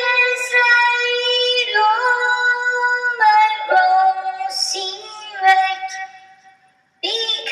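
A man's singing voice put through a pitch-raising vocal filter, so that it sounds high and synthetic. It holds long notes that step from one pitch to the next, fades out about six seconds in, and after a brief pause starts again near the end.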